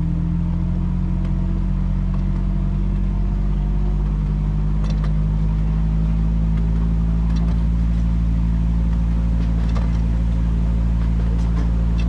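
Engine of a 10.25-inch gauge diesel-type miniature railway locomotive running steadily, its pitch rising slowly over the first few seconds. A few faint clicks come later.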